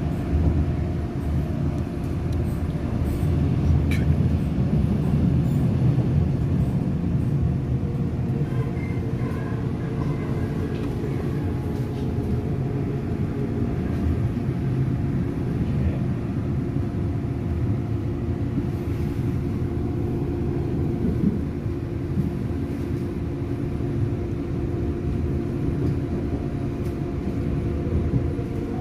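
Busan subway car running at speed, heard from inside the car: a steady low rumble of wheels on the rails with a constant hum.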